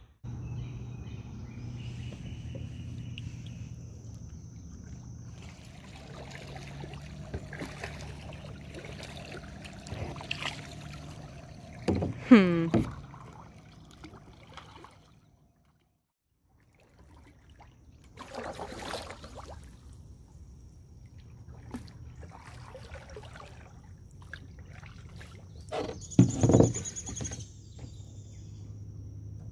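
Kayaks being paddled on calm water: paddle strokes and water sloshing against the hulls, with two louder short knocks or squeaks, one about halfway through (falling in pitch) and one near the end. A brief break of near silence comes about halfway through.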